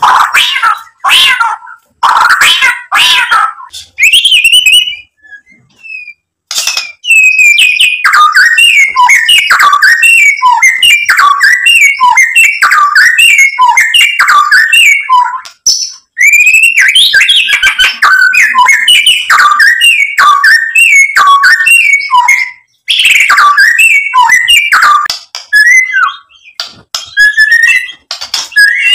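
White-rumped shama singing loudly in full song. Harsh rasping notes come in the first few seconds, then after a short pause long runs of quick, varied whistled notes, several a second, broken by brief pauses.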